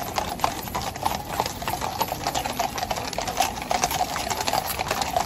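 Hooves of a column of Household Cavalry horses clip-clopping on the road as they pass at a walk, a dense, irregular clatter of many hoofbeats.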